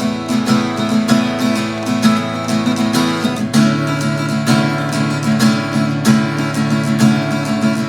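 KAMA acoustic guitar being strummed in steady chords, the strokes coming regularly, with a change of chord about halfway through.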